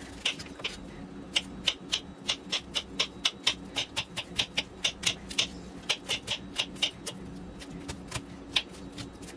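Chef's knife chopping a white onion on a wooden cutting board: quick, sharp knife strikes against the board, about four a second, thinning out near the end.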